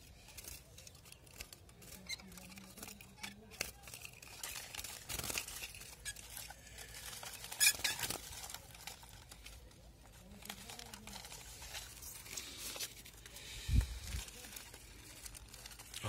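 Handling noise of a wooden cage with wire bars as a wild-caught goldfinch is taken out of it: scattered light clicks, knocks and rustling, with a sharp click about halfway through and a dull thump near the end.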